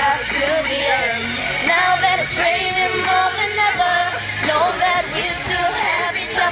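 Young women singing a song together, with held notes and no instruments clearly present.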